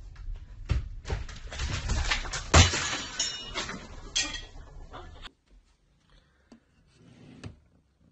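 A clattering crash: a run of sharp knocks and bangs, the loudest about two and a half seconds in, with a clinking, breaking ring after it, as a person kicks out and falls to the floor amid things knocked over. After about five seconds it goes almost quiet, with a couple of soft clicks.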